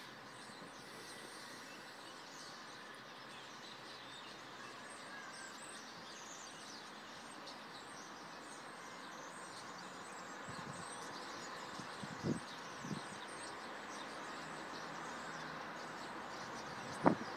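Outdoor evening ambience: a steady background hiss with faint bird chirps. There are two soft thumps about twelve seconds in and a louder one near the end.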